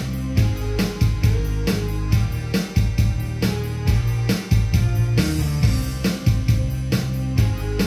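Recorded pop backing track playing its intro: drums keep a steady, even beat under a bass line, with no saxophone yet.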